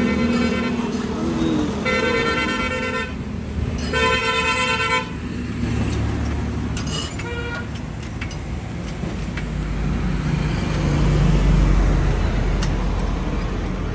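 A vehicle horn honks three times, each toot about a second long, then a low engine rumble swells near the end as a vehicle runs close by.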